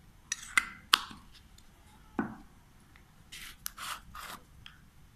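Kitchen handling sounds from a metal teaspoon and a small plastic tub of baking soda. A few sharp clicks come in the first second, then a knock, then several short scraping rubs as the spoon works in the powder.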